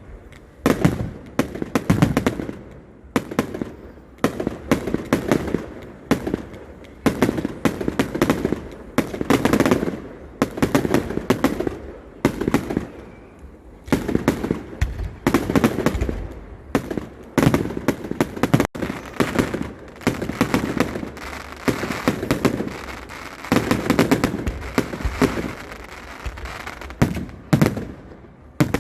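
Fireworks display: aerial fireworks bursting one after another, with dense crackling reports coming in clusters every second or two.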